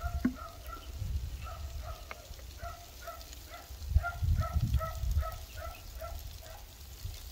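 An animal calling in a quick, even series of short two-toned notes, about three a second, stopping about six and a half seconds in. Low rumbling noise runs beneath the calls and swells about four seconds in.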